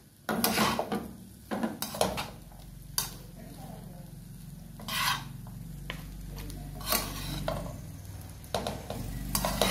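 Wooden spatula and metal spoon stirring and tossing fried rice in a frying pan: irregular clacks and scrapes against the pan, about a dozen in all. A low steady hum runs underneath from about two seconds in.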